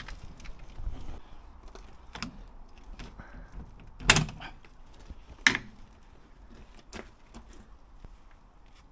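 Scattered metal clicks and knocks from hand-tool work on the mini excavator's rusted steel cab. Two louder knocks come about a second and a half apart midway.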